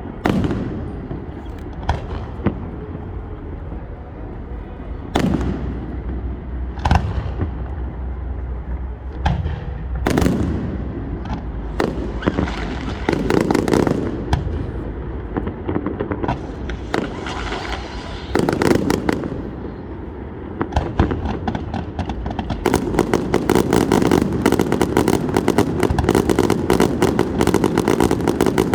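Fireworks going off: single bangs every second or two, some echoing. About two-thirds of the way through they give way to a dense, rapid crackle of many small pops, like a string of firecrackers.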